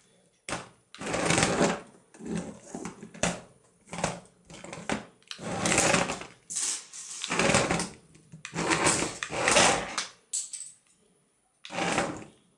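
Small DC motor of a wooden kit RC car whirring as it drives the wheels, switched on and off from the remote in about a dozen short bursts of half a second to a second each.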